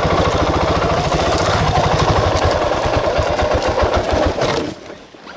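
Motorcycle engine running slowly at low speed with an even putter of firing pulses, then switched off about four and a half seconds in.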